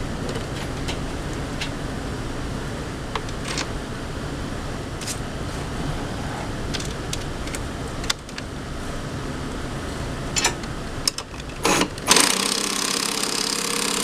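Light metallic clinks of hand tools and hardware over a steady low rumble, then about twelve seconds in a power tool runs loudly for a couple of seconds, driving a fastener on a tow dolly fender bracket.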